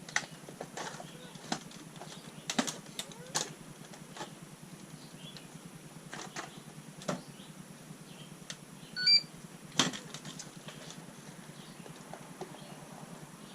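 Scattered clicks and light knocks from handling a Losi Lasernut U4 RC truck after it is switched on, with a short high beep about nine seconds in.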